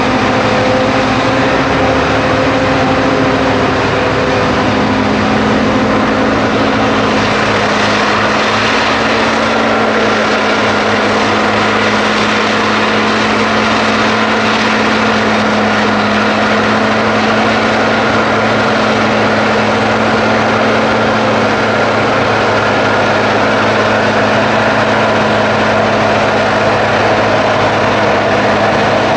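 Heavy farm machinery of a maize silage harvest, a self-propelled forage harvester and tractors, running steadily as a loud drone that drops slightly in pitch about four seconds in.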